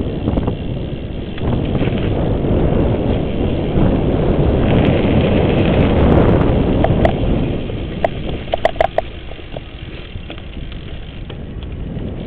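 A Cannondale mountain bike ridden at speed: wind buffeting the bike-mounted microphone and tyre rumble on the course, loudest midway. About eight to nine seconds in comes a cluster of sharp rattling clicks and a few short squeaks from the bike.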